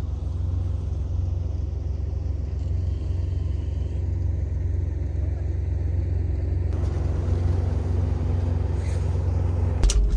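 Jeep engine running steadily, a deep even drone with no change in pitch. A few sharp knocks come near the end.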